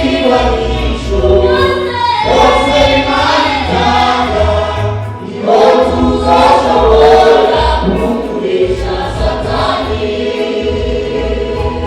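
Pentecostal church choir singing a gospel song, many voices together. The singing dips briefly about five seconds in, then swells back louder.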